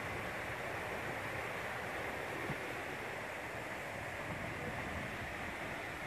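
Tall, narrow waterfall falling onto a rock face: a steady rush of splashing water.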